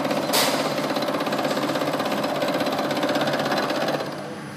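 End mill on a vertical milling machine cutting across a workpiece: a steady, rapidly pulsing cutting sound over the machine's hum, with a brief sharp hiss about a third of a second in. The cutting sound drops off sharply about four seconds in.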